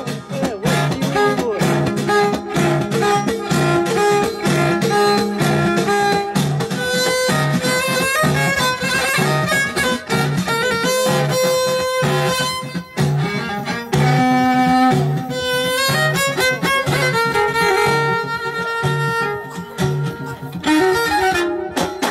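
Middle Atlas Amazigh folk music played live: a violin carries the melody over plucked lutes (lotars) and frame drums beating a steady rhythm.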